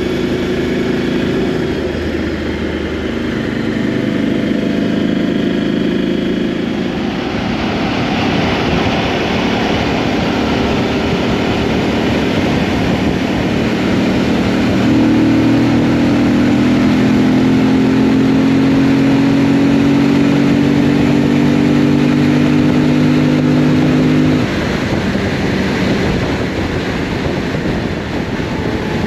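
Motorcycle engine running under way, with wind rushing over the microphone. From about halfway through, the engine note holds strong and climbs slowly, then drops away suddenly about three-quarters of the way through.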